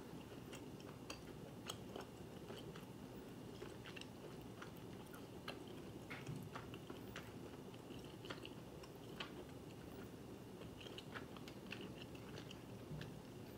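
Faint chewing of chewy rice-cake tteokbokki, with small scattered mouth clicks over a quiet room hum.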